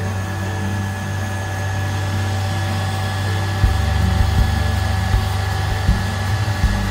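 Self-propelled modular transporter's diesel power pack running steadily with a low hum and a faint whine as the multi-axle trailers creep along under load. From about three and a half seconds in, a deeper rumble with irregular low thumps joins it.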